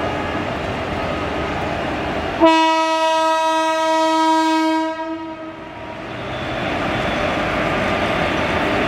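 WAP-4 electric locomotive sounding one long, steady horn blast of about two and a half seconds, a couple of seconds in, as it draws its train out of the station. The rumble of the moving train runs under it and builds again after the horn stops.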